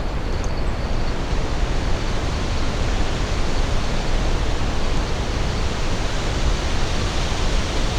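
Waterfall: the steady rush of falling water, an even roar with no breaks.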